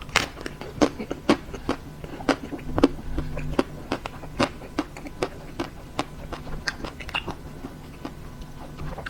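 Chewing a mouthful of chocolate-coated ice cream bar, its thick crisp chocolate shell cracking in irregular sharp crunches, about two to three a second.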